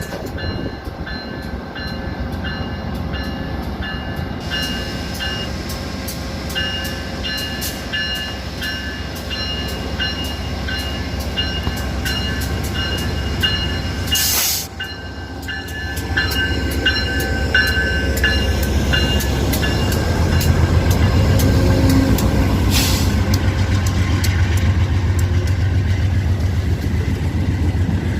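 A train rolling past, its wheels clicking over rail joints in a rapid, uneven patter. Thin high steady tones, like wheel squeal, run through the first two-thirds. A deep rumble grows louder in the second half, and there are two short loud bursts, one about halfway and one near three-quarters of the way through.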